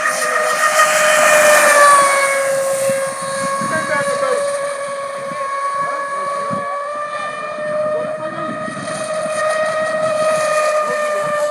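Radio-controlled speedboat's motor running at speed with a steady high-pitched whine. It is loudest and dips slightly in pitch about two seconds in, then holds steady as the boat runs across the water.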